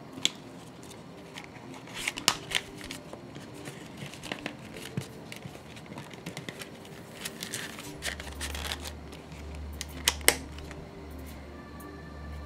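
Hands handling a leather card wallet: scattered sharp clicks from its metal snap and the cards, with soft leather and card rustling between them, including two quick clicks close together late on. Quiet background music runs underneath, and a low hum starts partway through.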